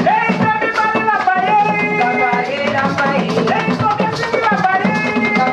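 Upbeat dance music with singing over a steady beat of drums and shakers.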